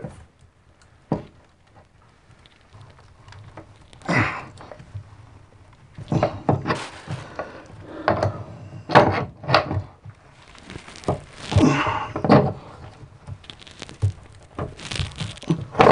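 Metal tools knocking and scraping in a bathtub drain as an adjustable wrench forces a tub drain wrench to unscrew a drain flange that is stuck really tight. The sound is a sharp click about a second in, then irregular knocks and scrapes.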